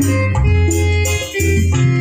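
Music played loud through a 12-inch speaker sound system during a sound check, with a heavy, steady bass, sustained keyboard-like notes and bright shaker-like percussion, dipping briefly a little past halfway.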